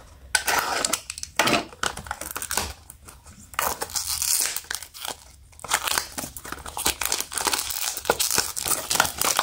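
Packaging crinkling and tearing as a small cardboard blind box is handled and worked open in the hands: irregular rustles and scratches with a few short pauses.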